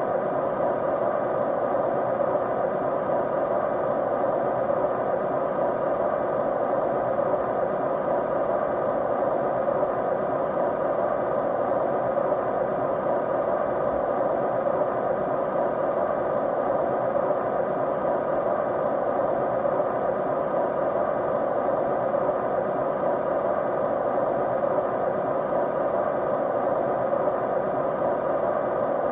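Steady white noise: an even, unchanging rush strongest in the middle range, with faint steady hum tones underneath.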